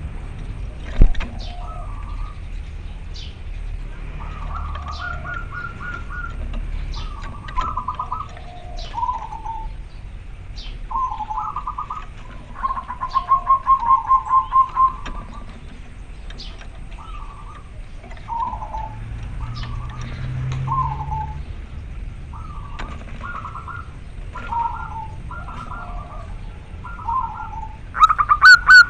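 Male zebra dove (perkutut) cooing to call a female: repeated short, clear coo phrases, with a louder fast run of staccato coos about halfway through and again near the end. A single sharp click about a second in.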